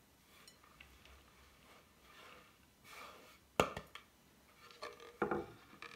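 Crumbly ground mixture sliding off a wooden board into a wooden bowl with soft rustling swishes, then the board knocking against the bowl's rim: one sharp wooden knock midway, followed by a few lighter knocks and scraping near the end.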